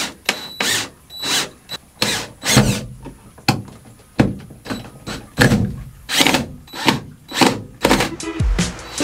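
Cordless drill driving screws into a plywood box in a quick series of short bursts, each under a second long. Music comes in near the end.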